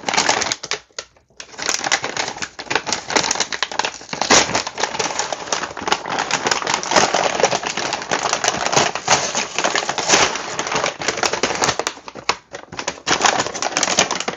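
A shipping package being handled and opened: dense, irregular crackling and rustling of the packaging, with a short pause about a second in and a quieter stretch near the end.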